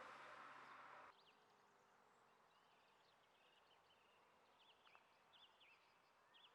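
A fading rush of noise cuts off abruptly about a second in, leaving near silence with faint, scattered bird chirps.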